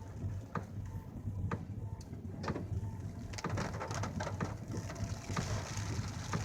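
Car rolling slowly over a storm-littered road, with a steady low rumble and scattered clicks and knocks from debris under the tyres. A hiss of wind and rain grows in the second half. A few faint short coo-like calls sound in the first three seconds.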